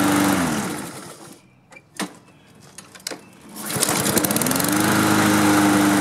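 Honda engine of a self-propelled walk-behind mower running steadily, then shut off about half a second in and winding down. After a sharp click and a short lull it starts again, rising to a steady run. This is the engine running again after a no-spark fault was repaired.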